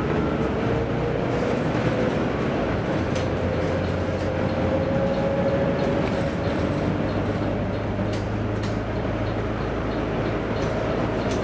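Volvo B9TL double-decker bus heard from on board while driving: its 9.4-litre inline-six diesel runs steadily with a low hum and a driveline whine that rises slowly in pitch over the first several seconds as the bus picks up speed. A few faint clicks and rattles are heard along the way.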